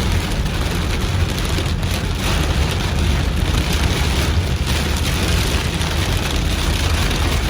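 Rain falling on a car as it drives, over a steady low road rumble.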